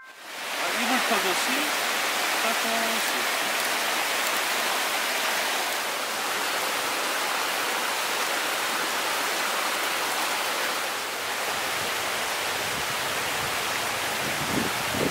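Mountain stream rushing steadily over rocks. Faint voices come through briefly about a second in and again near the end.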